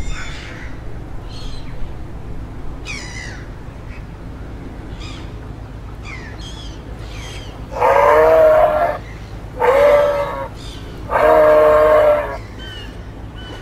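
Three loud, drawn-out animal calls, each about a second long, come in the second half. Short, high chirps from small birds are scattered throughout.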